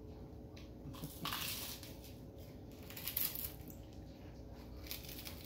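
Quiet, irregular crunching and crackling of a filled wafer snack being bitten and chewed, in a few short bursts.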